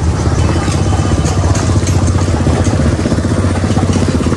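A small engine running steadily and loud, with a rapid, even throb.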